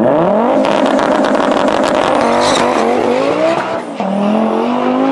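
Turbocharged Volvo 2.3-litre five-cylinder engine of a drag-racing Mk3 VW Golf at full throttle off the start line. It revs up hard and drops in pitch at the gear changes, once slightly about two seconds in and clearly about four seconds in.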